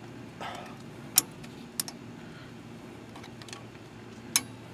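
A few sharp, light metallic clicks, spaced irregularly, as a magnet tool taps against the differential's gears and axle end while fishing out the axle C-clip, with a brief soft rustle about half a second in.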